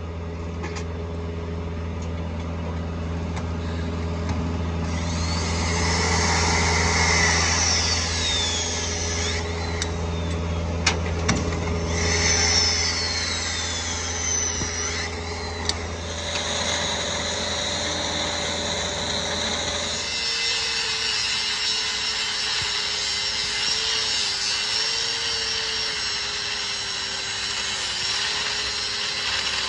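Electric shear wrench running on tension-control bolts, with a few sharp cracks as the bolt tips snap off; a steady low hum sits underneath. About two-thirds of the way in the wrench gives way to an angle grinder grinding steel, with a steady whine that wavers slightly in pitch.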